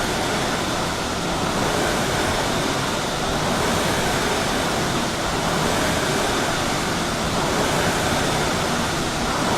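Steady rushing whoosh of several Concept2 rowing machines' fan flywheels spinning under light strokes, swelling slightly with the strokes.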